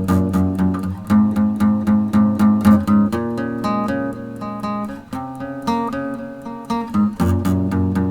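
Acoustic guitar strumming chords in a steady rhythm, the chord changing every second or two.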